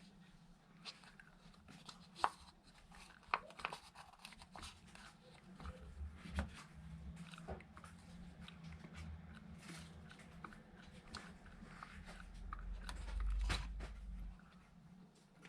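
Scattered light clicks and knocks of things being handled at close range, with a low rumble near the end.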